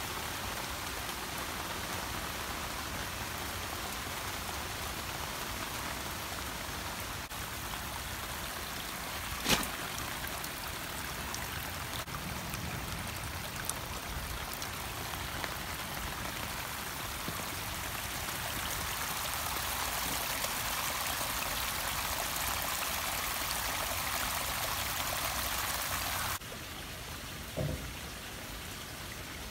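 Heavy rain falling, with storm runoff rushing over the ground and along a concrete drainage channel: a steady hiss of rain and running water. A single sharp knock comes about a third of the way through. Near the end the sound drops suddenly to a quieter rain hiss.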